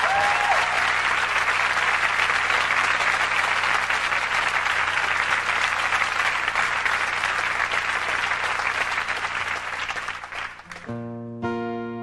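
A live concert audience applauding and cheering, with a whistle or two near the start. The applause dies down about a second before the end, as a guitar starts strumming chords.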